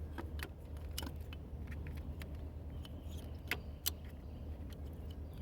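Scattered light clicks and taps of an ignition coil being handled and fitted after its tip is greased, over a steady low hum.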